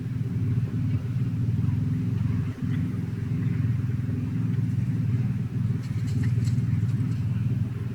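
Truck engine running steadily, with a few light clicks about six to seven seconds in.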